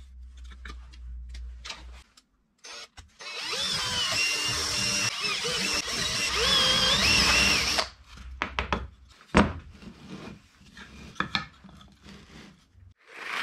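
A handheld power tool motor runs under load for about four and a half seconds, its pitch wavering. It is followed by scattered taps and clicks of handling, with one sharp knock.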